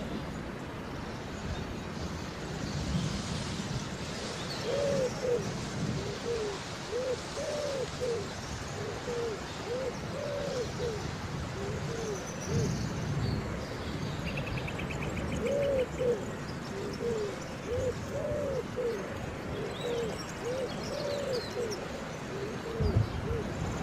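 A long series of short, low hooting calls, about two a second, over a steady hiss of rain, with low thunder rumbles about midway and near the end. A brief fast insect-like trill comes in about two-thirds of the way through.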